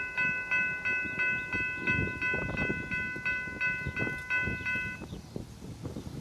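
Railroad crossing bell ringing about three times a second, stopping about five seconds in, over the low rumble and clanks of a freight train led by two GP-series diesel locomotives pulling away.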